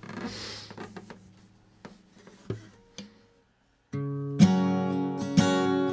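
A few soft knocks and a brief rustle, then about four seconds in an acoustic guitar begins the song's intro: a ringing chord picked up with strums about once a second.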